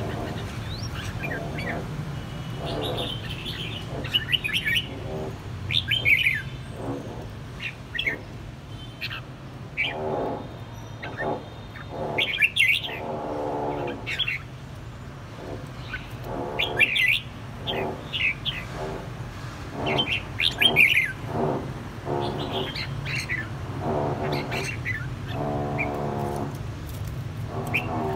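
Caged red-whiskered bulbuls calling and singing in short, quick phrases, one after another, sparring back and forth. A steady low hum runs underneath.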